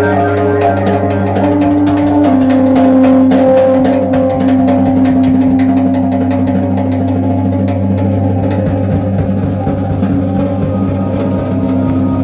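Live instrumental jazz-rock band playing loudly: a drum kit with fast, busy cymbal and drum work under electric bass and long held keyboard notes that step to a new pitch now and then.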